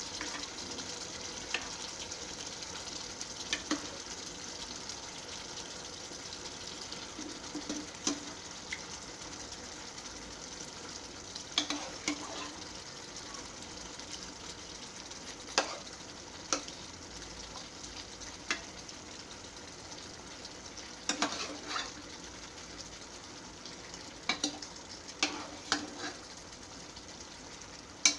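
Potato curry cooking in a non-stick frying pan with a steady sizzle, broken every few seconds by short knocks and clicks as cubes of paneer are put into the pan.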